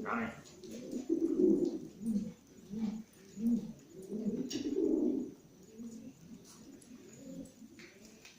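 Domestic pigeons cooing, a string of low, overlapping coos, loudest in the first half and softer toward the end.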